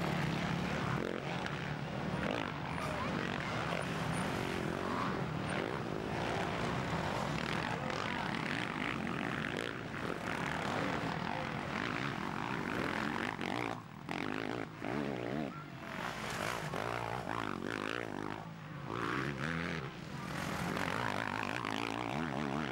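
Motocross motorcycle engines revving hard as the bikes race past, the pitch rising and falling with the throttle and gear changes. The sound dips briefly a few times in the second half.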